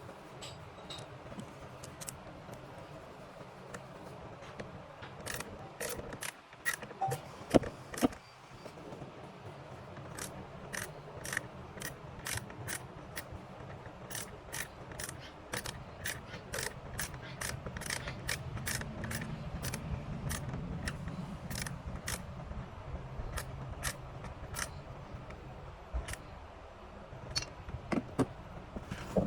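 A hand tool clicking in a long run of sharp clicks, about two a second, with a few louder knocks around six to eight seconds in.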